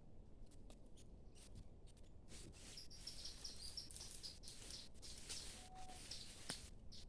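Small bird chirping in the forest: a run of short, high, rapidly repeated notes starting about three seconds in, over scattered faint clicks and taps.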